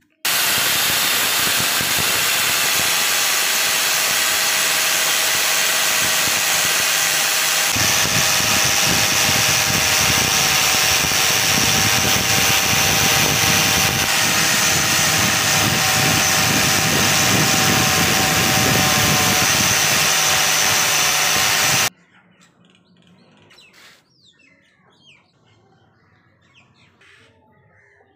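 Angle grinder fitted with a buffing wheel running steadily while polishing the steel bar of a hacksaw frame. The sound grows fuller about a third of the way in, as the wheel bears on the metal. It cuts off suddenly about three-quarters of the way through, leaving only faint small noises.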